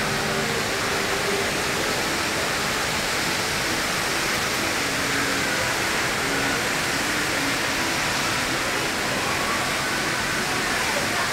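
Steady rushing of the Rain Vortex, a tall indoor waterfall falling through an opening in a glass dome, with faint voices of people nearby.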